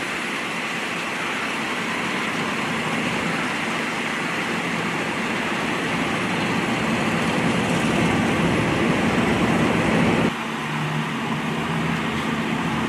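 Steady mechanical rumble of vehicle engines running, building slightly, then dropping suddenly about ten seconds in to a steadier low hum.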